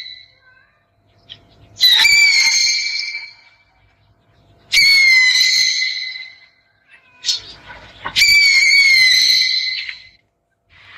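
An owl giving three high-pitched calls about three seconds apart, each starting sharply and fading away over a second or two, with a short fainter call between the last two.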